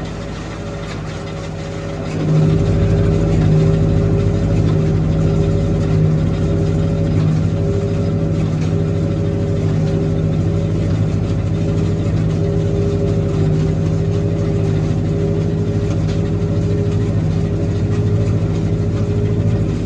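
Tractor engine running steadily, somewhat quieter for the first two seconds and then louder.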